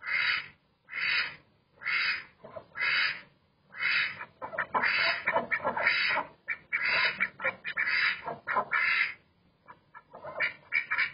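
Domestic ducks quacking loudly: single quacks about once a second at first, then quicker runs of quacks, and a few short ones near the end.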